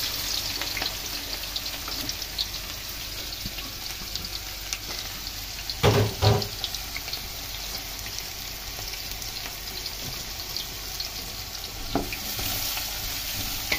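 Sliced onions sizzling and crackling in hot oil in a large aluminium pot: loudest just as they go in, then settling to a steady fry. A couple of short knocks about six seconds in, and a wooden spoon starts stirring near the end.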